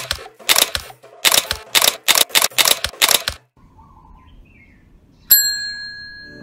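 A rapid run of sharp clicks for about three seconds, then a quiet pause with faint chirps, then a single bright bell-like ding that rings on.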